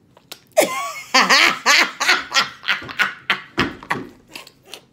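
People laughing hard: a sudden outburst about half a second in, then rapid repeated bursts of laughter.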